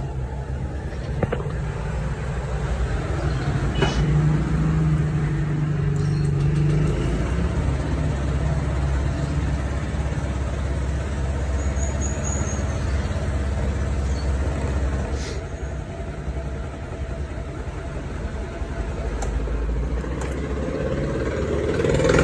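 Honda Click scooter's single-cylinder engine starting and running at a steady idle, a little stronger for a few seconds about four seconds in.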